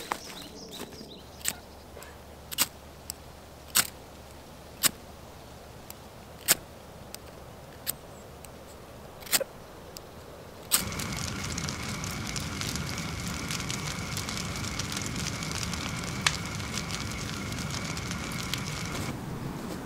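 Eight or so sharp clicks at gaps of about a second, then about halfway a campfire starts crackling steadily.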